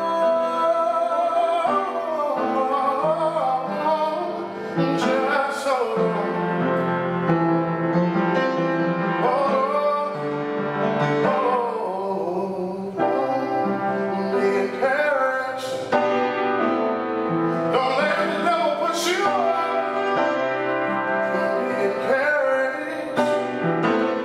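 A man singing a slow song, accompanying himself on an upright piano.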